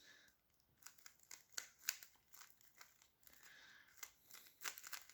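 Faint, irregular clicks and clacks of plastic cube layers being turned by hand on a Rubik's-type speed cube.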